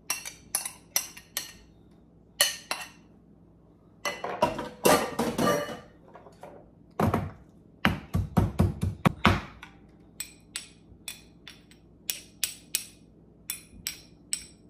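A metal spoon clinking and scraping against ceramic bowls and a stone mortar as grated ginger, citrus rind and pounded garlic are scooped into a sauce bowl. A run of heavier knocks comes in the middle, then light, quick taps of the spoon near the end as the garlic is knocked off.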